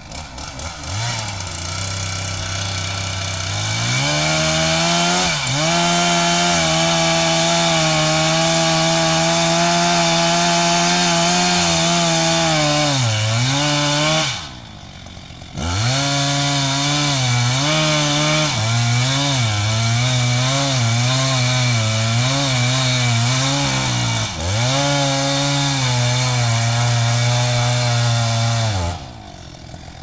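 Chainsaw cutting into a large tree trunk: the engine rises from idle to full throttle about four seconds in and runs high under the load of the cut, its pitch dipping and recovering again and again. It drops away for about a second near the middle, comes back into the cut, and falls off near the end.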